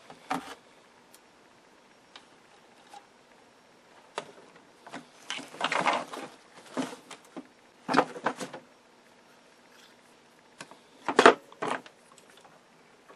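Handling noise from work on a metal chassis: scattered clicks, taps and scrapes from hands and tools, in a few short clusters with quiet between, the sharpest about eleven seconds in.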